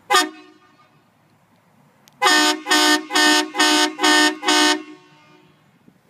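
Horn Blasters Rocker 2 air train horn blasting: one short blast, then, about two seconds later, six quick blasts in a row at about two a second.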